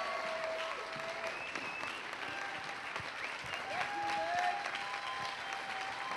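Audience applauding, a steady spread of many hands clapping.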